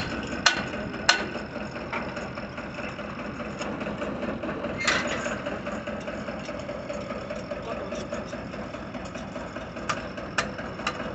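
Tractor engine running steadily to drive the borewell rig, with sharp metallic clanks of a hand hammer striking the metal clamp on the steel pipe: a few in the first second or so, one about halfway, and three near the end.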